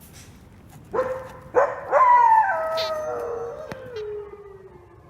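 Wolves howling: one howl starts about a second in, a second joins just after, and the loudest glides slowly down in pitch, fading out near the end.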